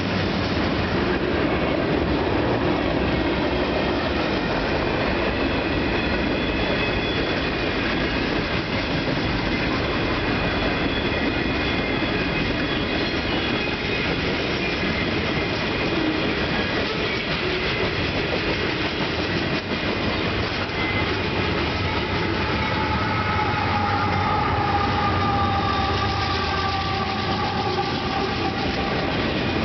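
Freight cars of a passing Union Pacific train rolling by with a steady rumble of wheels on rail and a faint high wheel squeal. From about 18 s in, a second freight's GE diesel locomotives close in, adding a deeper engine rumble. From about 22 s in comes a sustained two-note tone that falls slightly in pitch as the lead locomotive nears the crossing.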